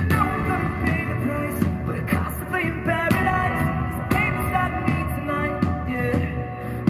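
A live pop-rock band playing: drums, electric bass and keyboards, with a male lead singer's vocals over them.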